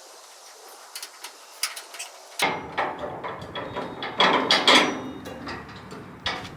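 Scattered clicks and knocks that become louder, fuller clattering and banging about two and a half seconds in, loudest around the middle.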